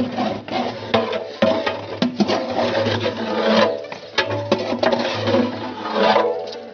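A metal ladle scraping and stirring chicken masala in a large aluminium pot, in a run of irregular rasping strokes, with music underneath.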